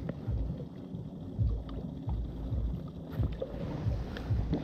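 Uneven low rumble of wind and small waves lapping against shoreline rocks, with a few faint clicks from fishing tackle being handled.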